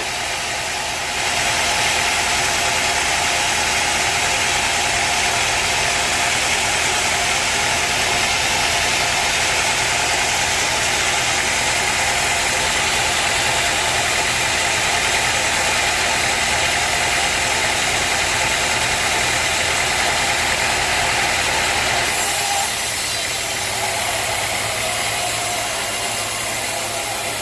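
A sawmill running steadily, with a dense hissing layer over its engine that drops away abruptly about 22 seconds in.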